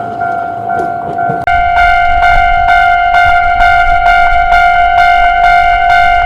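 Japanese railway level-crossing warning bell ringing its steady "kan-kan" at about three strikes a second. A low rumble sits under it for the first second and a half, and then the ringing suddenly gets louder and sharper.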